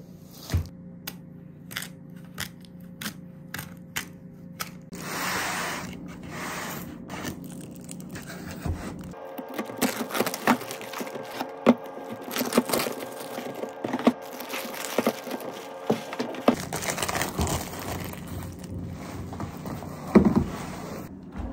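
Small paper juice cartons handled out of a cardboard case and set down on a counter: a string of light taps and knocks, with plastic shrink-wrap crinkling and tearing. One louder knock comes near the end.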